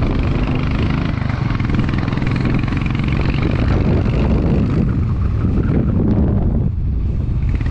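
A motorcycle engine running steadily while riding, under heavy wind and road noise.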